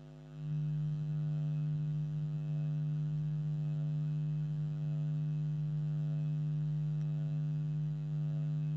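Steady electrical hum with a buzzy edge, coming up about half a second in and then holding at one unchanging pitch.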